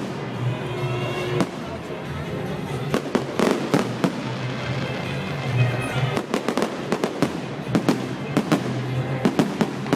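Fireworks going off in quick runs of sharp bangs and crackles, thickest about a third of the way in and again through the second half, with music playing underneath.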